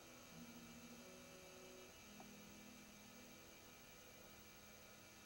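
Near silence: a faint steady electrical hum, with a few faint held low tones.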